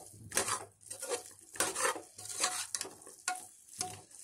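A metal spoon stirring and scraping chunks of raw jackfruit in thick masala around the bottom of an aluminium pressure cooker, in a string of irregular scrapes a few per second.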